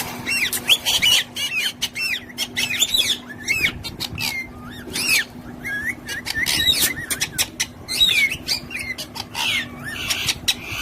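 Parrots chirping and chattering: a quick run of short calls that arch up and down in pitch, with sharp clicks among them. A faint steady hum lies underneath.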